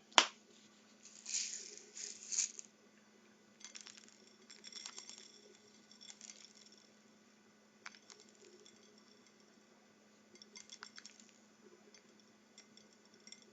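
Small sprinkles shaken from a plastic shaker container onto a frosted cupcake: a sharp click at the start, then rattling shakes about a second in, followed by lighter pattering and scattered ticks.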